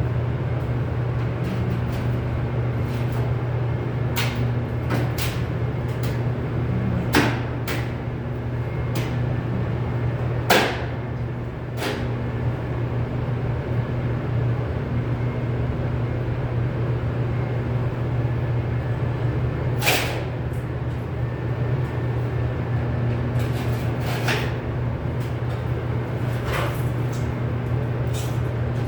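Sheet metal work: scattered sharp knocks and clanks, the loudest about ten seconds in and again about twenty seconds in, over a steady low hum.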